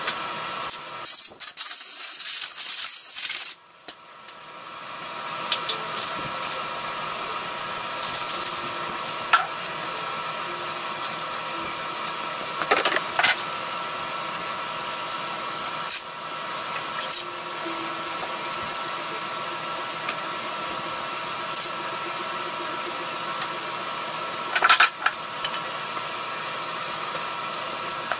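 A loud, steady hiss of a pressurised spray for about two and a half seconds, cutting off suddenly, then a steady hum with scattered short rustles and tearing sounds of masking tape being pulled off the roll and torn.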